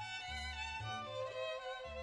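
Background music with a violin playing a slow melody in held notes over a low accompaniment.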